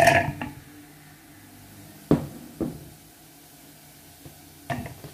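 Sliced sausage pieces tipped from a glass bowl clatter into the empty plastic bowl of a hand-blender food chopper, loading it before mincing. A few sharp knocks of handling on the tabletop follow, about two seconds in and again near the end.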